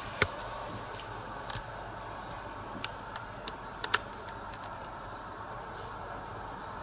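Quiet room tone with a few light, sharp clicks: one just after the start, then a cluster of four or five between about three and four seconds in.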